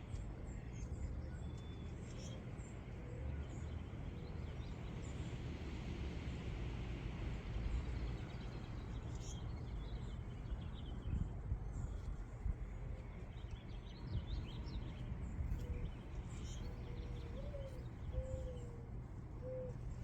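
Outdoor ambience: a steady low rumble with faint scattered bird chirps.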